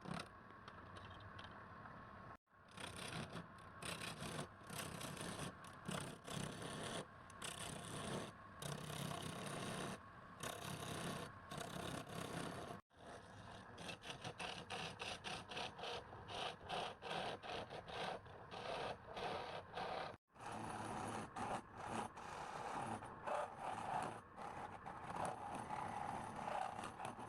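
Woodturning on a lathe: a tool scraping and rubbing against spinning wood, with a steady machine hum underneath, in several stretches that cut off abruptly three times.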